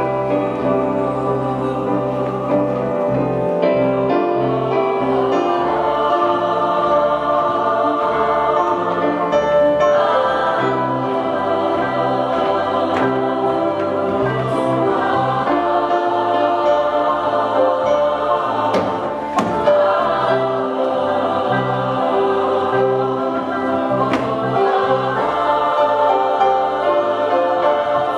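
Women's choir singing in sustained harmony, with a low line of held bass notes moving step by step beneath the voices.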